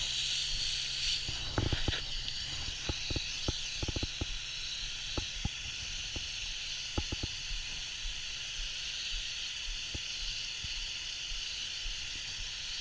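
Steady hiss of fine water mist spraying out of a nozzle, with scattered light clicks and taps, most of them in the first few seconds.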